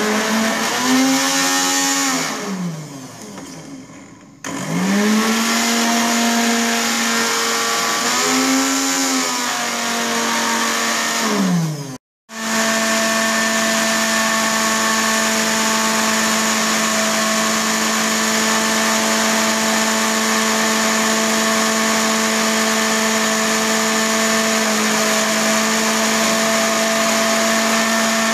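Small electric spice blender grinding shallots, garlic, tomato and chillies into a spice paste. It runs in a few short spurts early on, its whine rising as it spins up and falling as it stops, then from about twelve seconds in runs continuously at a steady pitch.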